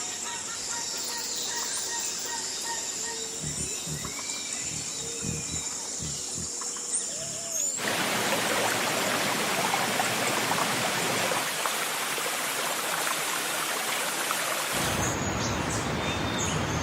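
Jungle ambience: scattered bird calls and chirps over a steady high-pitched insect drone, with a few low thuds in the middle. About eight seconds in, it cuts abruptly to a louder, steady rushing noise, and bird chirps are heard over it again near the end.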